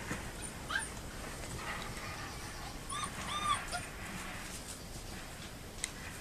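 Puppies whining and yipping: a short rising squeak about a second in, then two high, arched whines around three seconds in.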